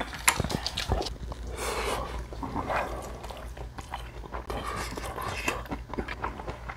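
A person chewing food with wet mouth sounds, with scattered small clicks.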